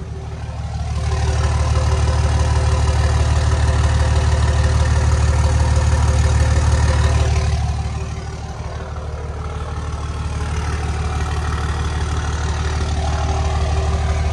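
A 2004 Dodge Ram's 5.9 Cummins diesel idling steadily. The sound swells about a second in, dips briefly about eight seconds in, then holds steady.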